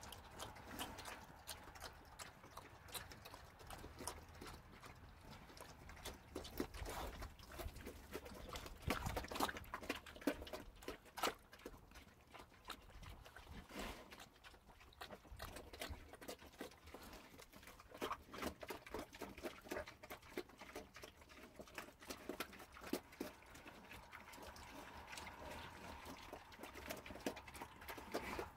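American Guinea Hog cross pigs eating wet grain mash from feed tubs: an irregular, continuous run of wet chomping, smacking and slurping clicks.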